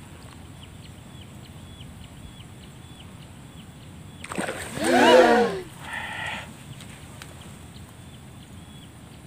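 A juvenile snakehead strikes at a surface soft-frog lure with a sudden splash about four seconds in. It is met by a startled shout that rises and falls in pitch, and a shorter vocal sound follows.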